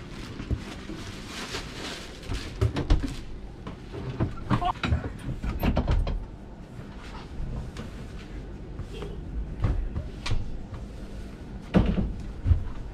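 Handling noises from a sleeper-train berth being made up: irregular knocks and clunks, bedding in plastic bags rustling, and a couple of sharper thumps as the metal berth rail and mattress pads are handled, over a steady low hum.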